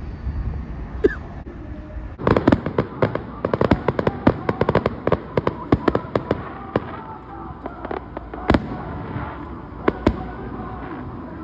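Firecrackers going off: a rapid string of sharp pops starting about two seconds in, thinning out into a few separate loud bangs near the end.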